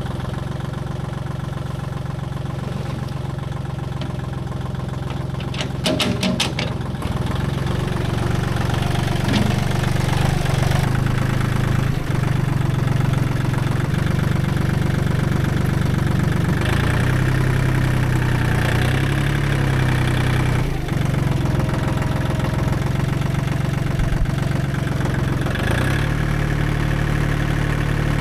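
Kubota L1-18 compact tractor's diesel engine running, getting louder about six seconds in, when a few sharp knocks come through. Its note wavers for a few seconds midway.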